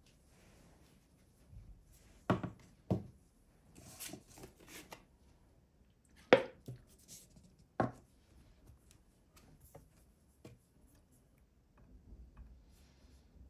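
Kitchen food-prep sounds: about five sharp knocks spaced irregularly, with quieter clicks and rustles between them.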